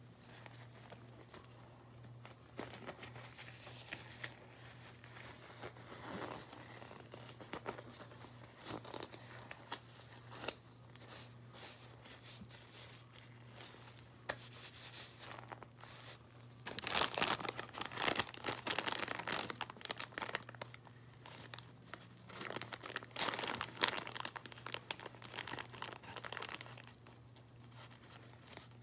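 Plastic crinkling and crackling as blue nitrile gloves are pulled on and a zip-top bag of slime is handled, with two louder spells of crinkling in the second half.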